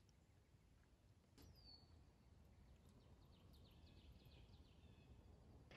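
Near silence with faint outdoor ambience. A distant songbird gives one short whistle that drops and then holds, followed by a quick run of repeated high notes.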